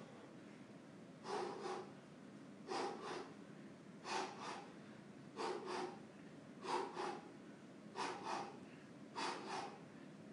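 A boxer's short, forceful exhalations in time with his punches while shadowboxing side hooks: seven quick double breaths, one pair a little more than a second apart.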